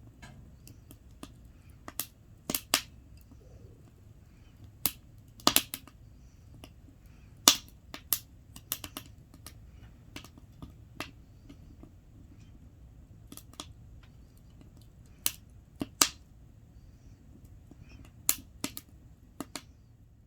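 Wood fire burning in a Solo Stove fire pit, crackling with irregular sharp pops over a low steady rumble of flame.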